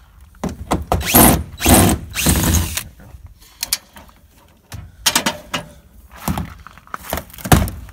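Cordless drill running in short bursts as it backs a screw out of an RV's window frame: one longer run about a second in, then several brief bursts near the end.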